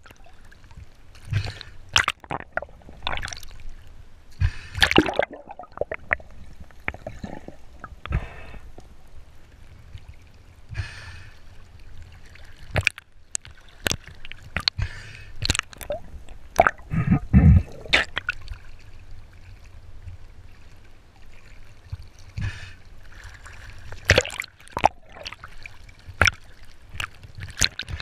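Underwater sound through a diving camera: irregular knocks and clicks over gurgling water as a speared white seabass is handled on the spear line, with a heavier thump about two-thirds of the way through.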